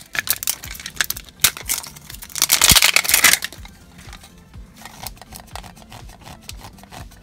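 Clear plastic wrap crinkling and tearing as it is peeled off a small plastic toy cauldron. There is a loud burst of crinkling and tearing about two and a half seconds in, then lighter crinkles and clicks of plastic.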